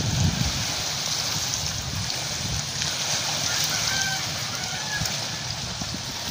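Wind gusting on the microphone over a steady wash of water at the shore. A few faint short high tones come in about three to four seconds in.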